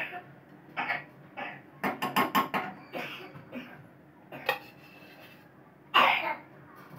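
A metal spoon clinking and scraping as ghee is scooped and put into an empty kadhai: a quick run of sharp clicks about two seconds in, a single click past the middle, and a louder, longer clatter near the end.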